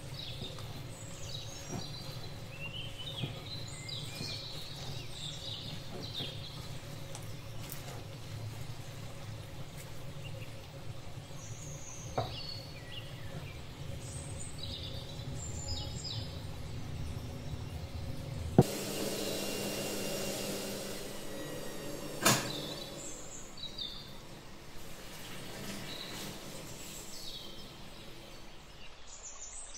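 Birds chirping now and then over a steady low hum, with a few sharp clicks. The hum cuts off abruptly a little past halfway.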